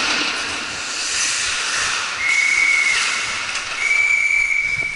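Referee's whistle blown twice in an ice hockey game: a short blast, then a longer one about a second later, each a single steady high tone, over a steady background hiss.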